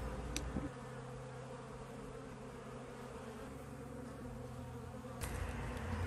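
Honey bees buzzing around their open comb in a steady hum, with one small click about half a second in.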